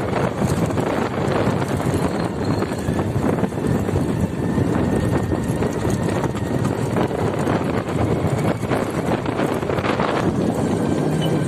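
Steady rush of wind and road noise recorded from a moving vehicle, with frequent irregular buffeting on the microphone.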